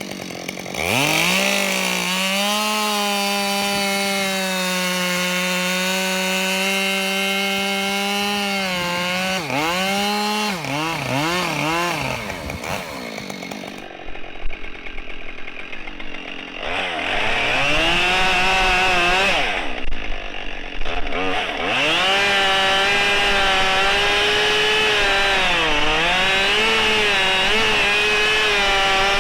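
Husqvarna 572 XP two-stroke chainsaw running at full throttle and bucking ash logs. Its pitch sags under load in the cut and blips up and down between cuts. A lower-revving stretch comes about halfway through before it winds back up.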